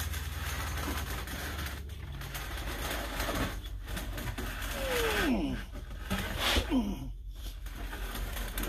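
Steel tube being bent by hand around a wooden bending form on a tabletop: the tube scrapes and rubs against the wood. Two short falling squeaks come at about five seconds and about seven seconds in.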